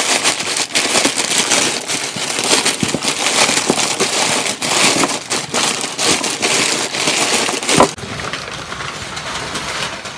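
Packing paper rustling and crackling as it is handled and pulled out of a cardboard box. The dense crackling stops about eight seconds in, leaving quieter handling noise.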